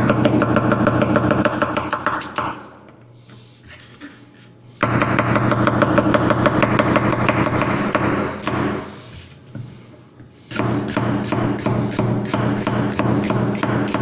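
Chinese vegetable cleaver chopping a red bell pepper on a wooden cutting board: fast, even knocks of the blade on the board, about five a second. The chopping comes in three runs with short pauses about two and a half seconds in and again around eight and a half seconds in, and a low hum sounds under each run.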